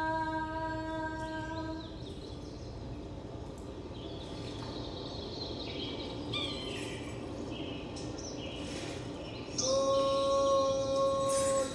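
A woman's voice holding a long sung note that stops about two seconds in. Then high bird-like chirps and twitters over a low steady hum. Near the end a new, higher sung note starts and is held steady.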